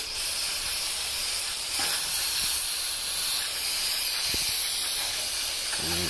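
Aerosol can of Berryman B-12 Chemtool carburetor and throttle body cleaner spraying in a steady hiss through its extension straw into a dirty throttle body bore, starting abruptly.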